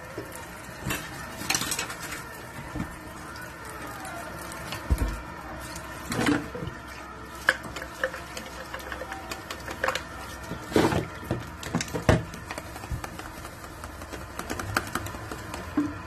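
Tap water running into a stainless steel sink while plastic sippy cups and baby bottles are scrubbed with a bottle brush, with irregular knocks and clatters of plastic cups against the sink.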